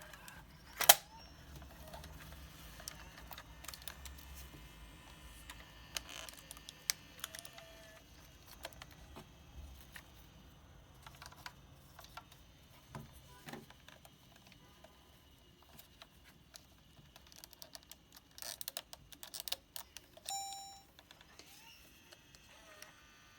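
Sony Handycam DCR-TRV270 camcorder being handled and its buttons pressed: scattered plastic clicks, a loud one about a second in and a quick run of clicks near the end, followed by a short electronic beep.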